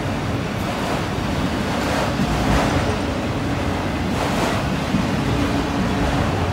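Long freight train of enclosed autorack cars rolling past, a steady rumble and rush of steel wheels on rail that swells a little twice. The train is dropping down a steep grade with its brakes applied.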